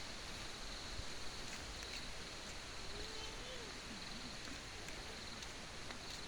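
Outdoor nature ambience: a steady high-pitched insect drone over a soft hiss. A faint wavering low call comes in about halfway through.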